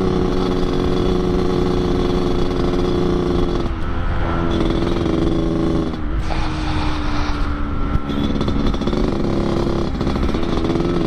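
Yamaha RX-King 135 two-stroke single-cylinder with an under-belly expansion-chamber exhaust, running under way at steady throttle with a 'ngorok' growling exhaust note. The note breaks up briefly about four and six seconds in, then settles again at a slightly lower pitch.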